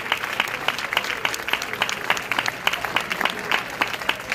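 Audience applauding, with steady dense clapping from many hands.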